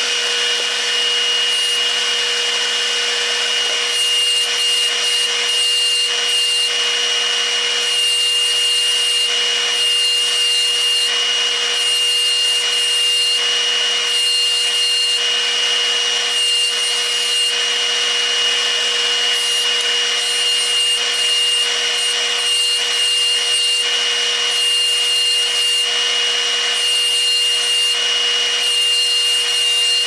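Electric bench polishing motor running steadily with a cloth buffing wheel, a constant hum under a continuous rubbing hiss as a sterling silver bracelet is pressed against the spinning wheel.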